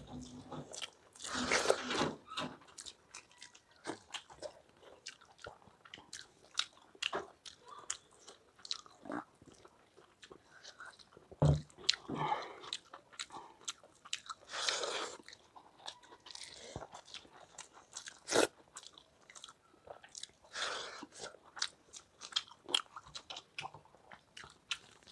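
Close-miked eating sounds of two people eating rice and palak paneer by hand: chewing and biting with many short mouth clicks, and a few longer squelching smears from fingers mixing rice and curry on steel plates. One louder knock about eleven seconds in and a sharp click about eighteen seconds in.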